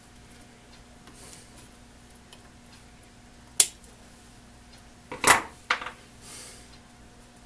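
Hand tools being handled on a workbench: one sharp metallic click, then a louder clatter of several knocks about five seconds in. A faint steady hum runs underneath.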